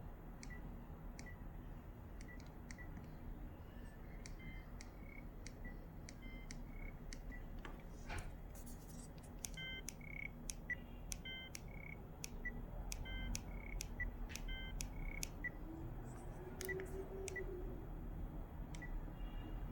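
ZTE V617 mobile phone giving short electronic beeps at irregular intervals, some single tones and some two- or three-note chords, with small clicks between them. The beeps come thickest in the middle. There is a brief handling noise about eight seconds in.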